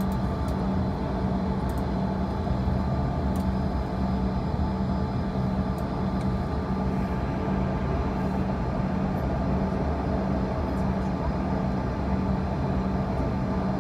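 Steady cabin drone of a Bombardier CRJ-200 on the ground with its rear-mounted GE CF34 turbofan engines idling, including a low hum that wavers slightly.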